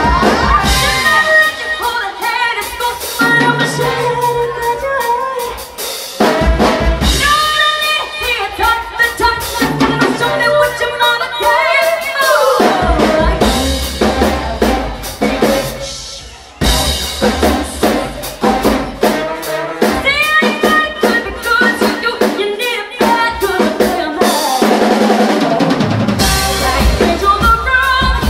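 Live band music: a woman singing lead over drum kit and electric bass. The bass and kick drum drop out for long stretches, leaving the voice and lighter drums, then come back in with the full band.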